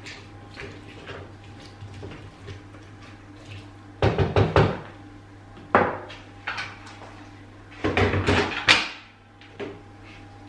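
Clattering knocks of the Krups Prep&Cook's stainless steel bowl and lid being handled: the contents are stirred with a spatula, then the lid is fitted back on. The knocks come in two clusters, about four and eight seconds in, over a steady low hum.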